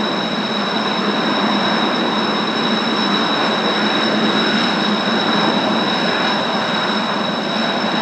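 Kawasaki T-4 jet trainers' turbofan engines running at idle on the ground: a steady high whine with two constant tones over a rushing noise.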